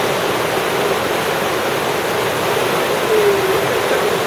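A fast, raging river rushing in a loud, steady wash of water noise.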